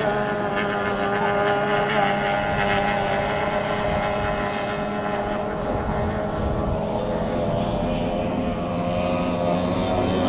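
Several racing outboard hydroplanes running at speed together, their two-stroke outboard motors making a steady drone of overlapping engine tones that waver slightly as the boats run the course.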